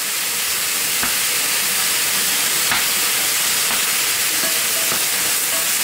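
Chicken pieces and freshly added broccoli sizzling in oil in a hot nonstick frying pan, a steady high hiss. A wooden spatula stirring the pan gives a few light knocks.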